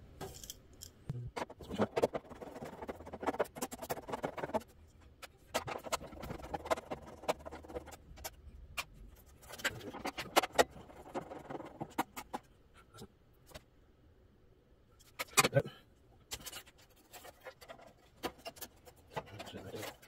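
Irregular scratching and small metal clicks of a screwdriver backing out the motherboard's mounting screws in a printer's metal chassis, in three bouts, with one sharp click about fifteen seconds in.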